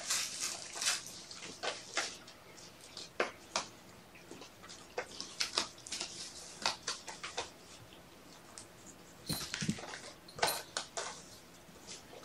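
Kittens playing among cat toys on a carpet: a string of light, irregular clicks, taps and rustles, busiest about nine to eleven seconds in.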